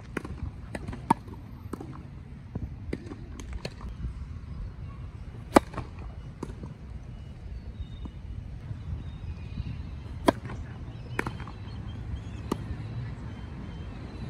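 Tennis balls struck by racket strings: sharp, separate pops, the loudest about five and a half seconds in and a few more scattered later, over a steady low rumble.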